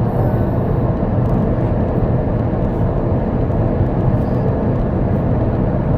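Steady rumble of road and engine noise inside the cabin of a moving car.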